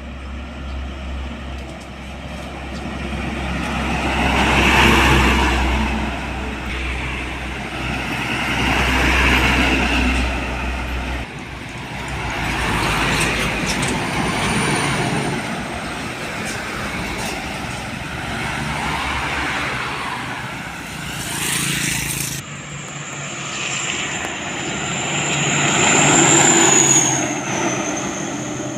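Heavy road vehicles, mostly trucks, driving past one after another, each swelling loud and fading away. A thin high whine is held through the last few seconds.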